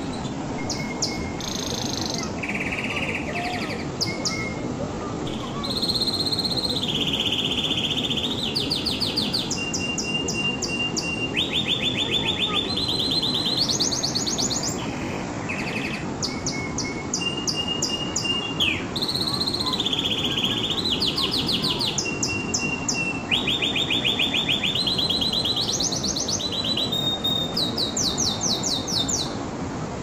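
Domestic canary singing a continuous song of rapid trills, each a fast run of one repeated note, jumping from one pitch to the next, with short steady whistled notes between them. A steady low background noise lies under the song.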